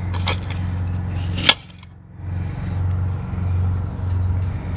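Lawn mower engine running steadily, with one sharp click about a second and a half in as a knife cuts through a carrot onto a glass cutting board.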